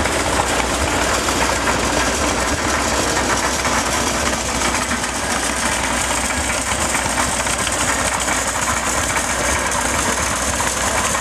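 International AS06 tractor engine running steadily at a constant speed.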